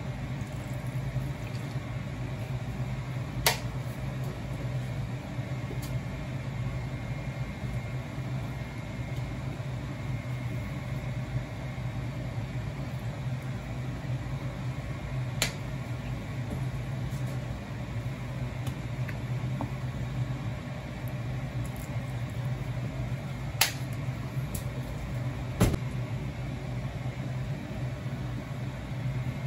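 Steady low hum of a kitchen while a pot of soup cooks on a lit gas burner, broken by four sharp clicks as seasoning containers are handled over the pot.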